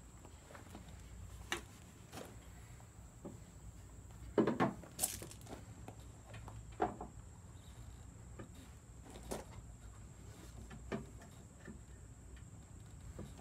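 A handful of light clicks and knocks of a plastic coolant overflow tank being handled and fitted into an engine bay, the loudest a short cluster about four to five seconds in.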